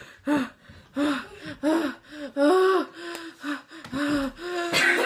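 A young woman gasping and whimpering in short, pitched breaths, about two a second, her mouth burning from very hot wing sauce.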